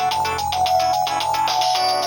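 Polyphonic ringtone played through a Samsung SGH-E300 mobile phone's speaker: a synthesized melody over a steady beat.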